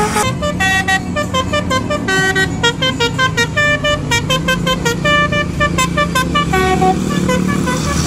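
Tourist bus's 'basuri' telolet horn, a multi-tone musical air horn, playing a quick tune of short staccato notes, several a second, over the low running of the bus.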